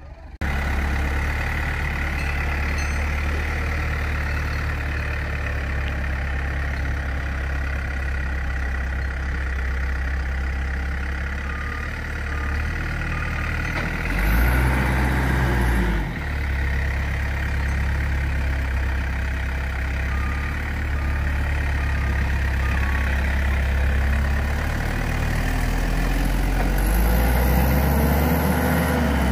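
Heavy vehicle engine idling steadily, revving up briefly about halfway through and again near the end.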